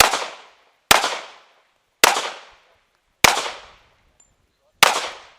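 Pistol fired one-handed at a steady pace: five sharp shots about a second apart, each with a short fading echo, the gap growing slightly as the shooter moves between targets.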